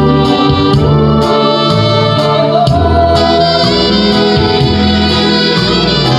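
A man singing a Korean trot song into a handheld microphone over amplified instrumental accompaniment with a steady beat.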